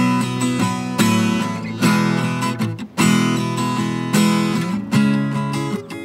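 Acoustic guitar strummed, a chord struck about once a second and left ringing between strokes, in an instrumental gap between sung lines of a folk song.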